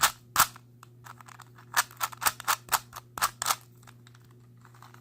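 Hard plastic clacks of a DaYan stickerless 3x3x3 cube's layers being turned by hand: two sharp snaps at the start, then a quick run of clacks in the middle.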